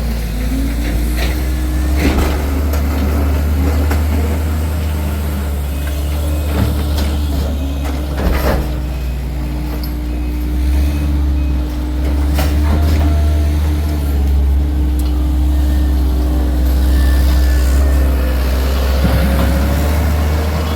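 Heavy diesel truck or work machine running steadily, a low rumble with a slightly wavering whine over it, and a few sharp knocks, twice standing out.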